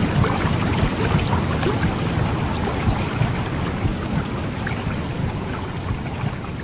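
Womb sound for soothing a baby: a dense, steady whooshing rumble with a crackly, rain-like texture, slowly fading lower.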